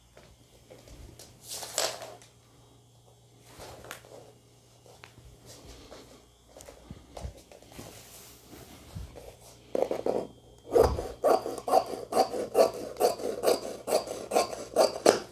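Scissors cutting through net fabric, with light rustling of the cloth at first and then a quick regular run of snips, about three a second, through the second half.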